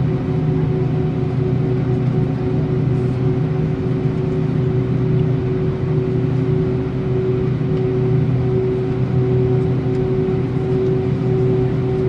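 Steady cabin hum of a parked Airbus A319 before engine start, from the auxiliary power unit and air-conditioning packs. It is a low, even rumble carrying a few steady tones.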